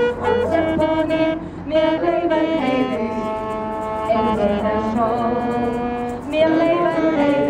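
A woman singing a song into a microphone with saxophone accompaniment, the melody moving in long held notes.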